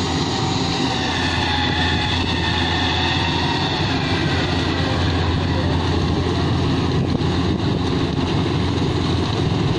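Rice combine harvester running steadily: a constant loud engine and machinery noise over a deep hum.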